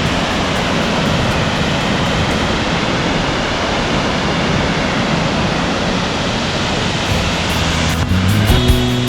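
Dynjandi waterfall's steady, loud roar of falling water close by. Near the end, background music with sustained notes comes in over it.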